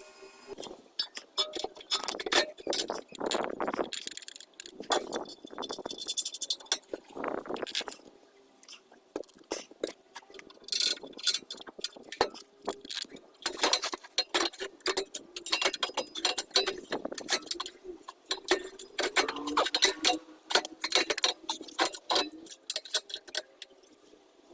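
Irregular metallic clicking and clinking, as of tools and metal parts being handled, with quiet gaps between clusters of clicks.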